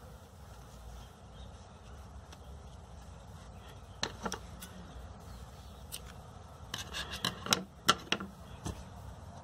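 Small scissors snipping off loose yarn tails: a couple of clicks about four seconds in, then a quick run of sharp snips near the end.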